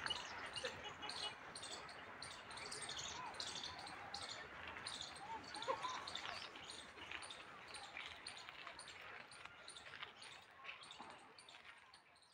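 Birds chirping and calling in the garden trees, over a run of short repeated high ticks. The sound fades out near the end.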